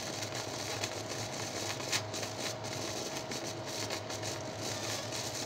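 Old 50-volt AC transformer humming steadily under heavy overload while driving current into a 12-volt sealed lead-acid battery. Over it is a hiss with irregular sharp crackles from the battery, which is boiling and venting as it is cooked by the AC.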